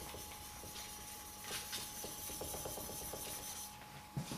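Steel back of a WoodRiver 4½ smoothing plane blade rubbed back and forth on fine micron-grade PSA abrasive paper: a quiet, steady scratchy rubbing as the back is flattened and polished.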